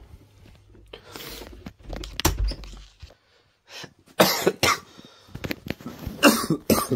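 A man who is ill coughing in several harsh bouts, the loudest about four and six seconds in.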